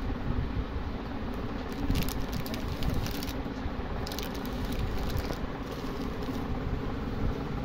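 Plastic chocolate-bar wrappers crinkling in short bursts as a hand handles them, over a steady low background rumble.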